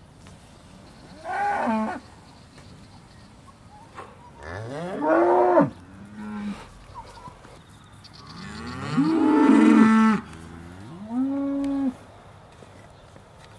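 Aussie Red dairy cows mooing: about five separate moos, each rising and then falling in pitch, the longest and loudest one lasting about two seconds near the middle.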